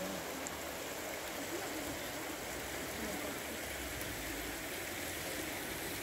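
Floodwater rushing across a paved street in a steady, even flow.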